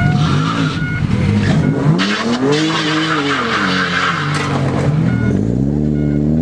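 Car engine revving hard, its pitch rising and falling in several sweeps, with tyres screeching as the wheels spin in a burnout.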